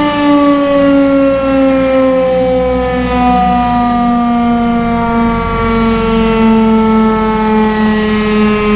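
Darley STH-10 electromechanical tornado siren sounding its steady alert tone, loud, with the pitch sliding slowly and evenly downward as it winds down near the end of its three-minute test run.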